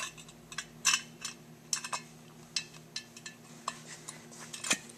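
Light metal clicks and clinks, roughly one a second, as the cast-iron parts of a tractor carburetor are handled and fitted together on a steel table, over a faint steady hum.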